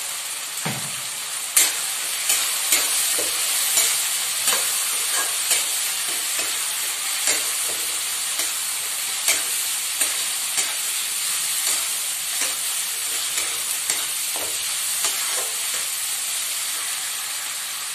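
Chopped onions and tomatoes sizzling in oil in a kadhai, with a steel spatula stirring and scraping against the pan, giving irregular sharp clinks over a steady sizzle.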